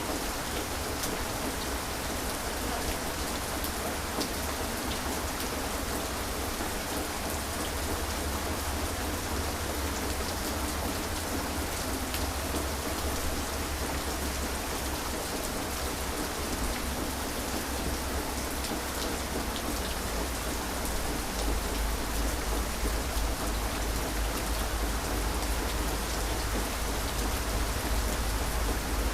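Heavy rain pouring steadily, with fine drop ticks over a dense hiss and a deep low rumble underneath that grows a little louder near the end.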